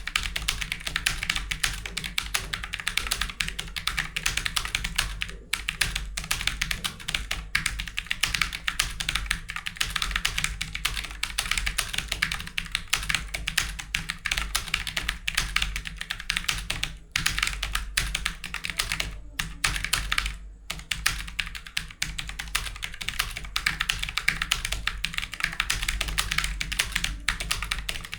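Fast, continuous typing on a computer keyboard, at about 85 words a minute, with a few brief pauses. A steady low hum sits underneath.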